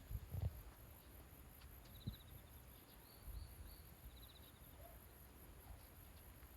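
Faint outdoor ambience of insects chirping: a steady, evenly pulsing high chirp throughout, with a few short trills about two, three and four seconds in. A few low bumps come right at the start.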